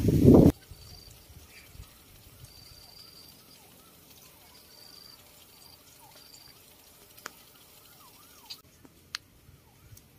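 Quiet outdoor ambience with faint, short, high-pitched chirps recurring every second or two and a few soft clicks near the end. A loud low rumble cuts off abruptly about half a second in.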